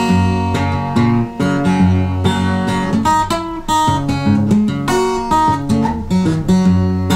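Acoustic blues guitar played solo with no singing: a run of plucked treble notes over a moving bass line.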